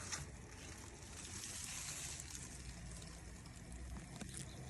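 Faint fizzing of baking soda reacting with vinegar, a soft steady hiss over a low rumble.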